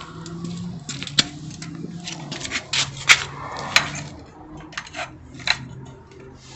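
A portable work light on a tubular metal stand being picked up and handled: a run of sharp clicks and metallic knocks, thickest from about one to four seconds in, with a couple more near the end, over a faint low hum.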